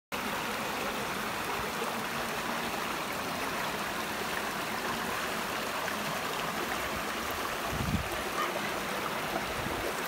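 Shallow rocky stream running steadily over and around stones. A brief low thump comes about eight seconds in.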